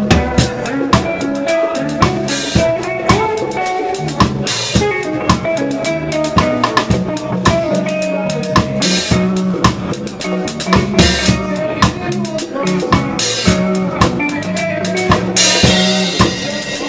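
Live reggae band playing, heard from right at the drum kit: close, loud drum hits and rimshots over bass guitar and guitar. Near the end a cymbal wash rings out over the beat.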